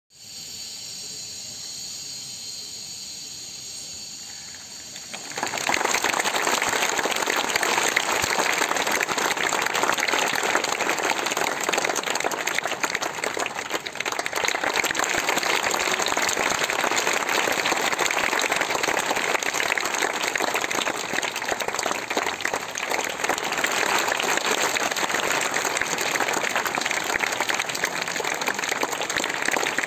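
A crowd of schoolchildren clapping steadily and continuously, starting abruptly about five seconds in after a fainter steady hiss.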